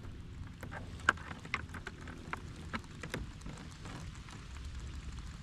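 Scattered light clicks and rattles from a square wire-mesh crab trap as blue crabs are shaken and picked out of it, the sharpest click about a second in, over a low steady rumble.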